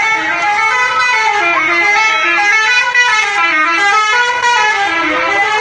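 Bus 'telolet' horn: a multi-tone musical horn playing a tune, several notes sounding together and stepping up and down in pitch.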